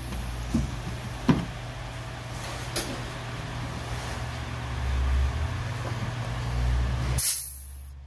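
Steady low mechanical hum with a few light clicks in the first three seconds, and a short bright hiss about seven seconds in.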